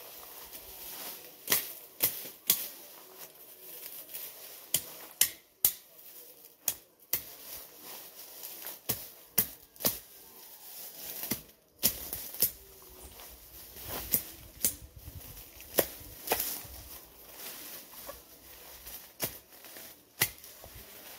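Machete chopping and slashing through weeds and vines, irregular sharp strikes, one or two a second.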